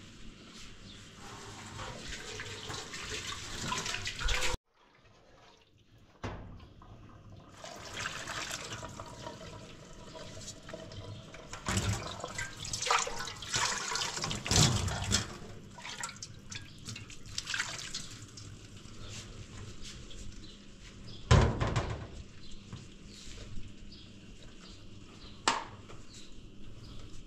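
Water running and splashing, with scattered knocks and clatter. A brief gap comes about five seconds in, and the loudest knock comes late on.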